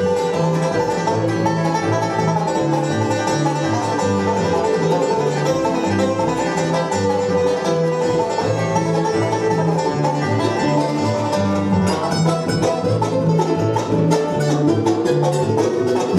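Live bluegrass band playing an instrumental break between sung verses: banjo and guitar picking over a steady bass line, the fast picking growing busier in the last few seconds.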